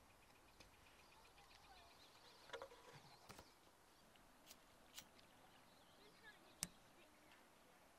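Quiet outdoor ambience with a few light clicks and taps as a hand tool and a piece of leather are handled on a wooden log, the sharpest click about two-thirds of the way in.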